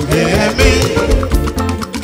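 Choir singing, backed by a live band with a drum kit and cymbals.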